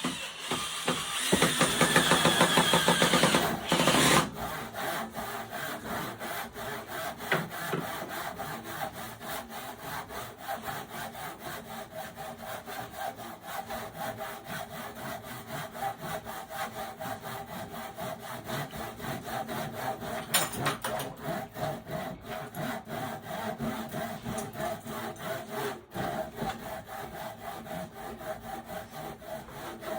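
Handsaw cutting through wood in steady back-and-forth strokes. The first few seconds are louder.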